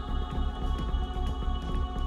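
Background music: a dark, droning soundtrack with sustained tones over a heavy bass pulse.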